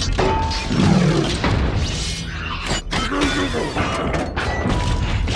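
Megatron's growl from the Bayverse Transformers films: a processed, mechanical robot vocalisation with gliding, distorted tones, mixed with metallic clanks and crashes.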